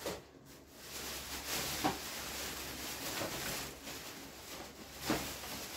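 A plastic shopping bag of balloon packets crinkling and rustling as it is handled, with a few small clicks and knocks.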